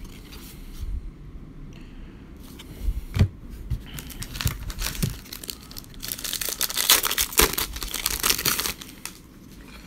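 Foil wrapper of a Panini Score football card pack crinkling and tearing open by hand, loudest from about six seconds in until near the end. A few knocks and rustles of handling come before it.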